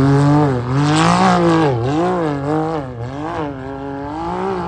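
Off-road race vehicle's engine revving hard on a hill climb, its pitch swinging up and down several times as the throttle is worked, getting a little quieter toward the end.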